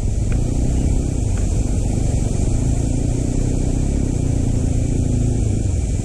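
Motorcycle on the move: its engine running steadily under a low rumble of wind and road noise.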